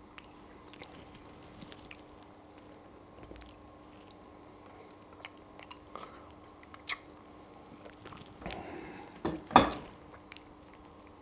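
Close-miked mouth sounds of a person eating spaghetti carbonara: quiet, sparse wet clicks of chewing, then a louder cluster of mouth sounds near the end.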